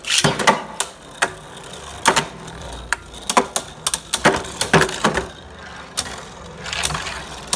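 Beyblade Burst tops, Nightmare Longinus among them, spinning in a plastic stadium and clashing in a run of sharp, irregular clacks against each other and the stadium wall.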